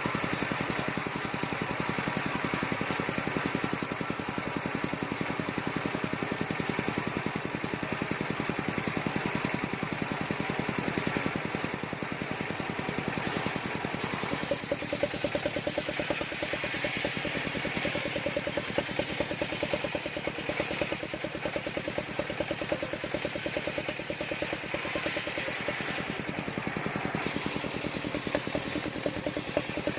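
Engine of a circular-saw rig (serkel) running steadily with a rapid even pulse; about halfway through the sound changes, taking on a steadier mid-pitched tone and more hiss.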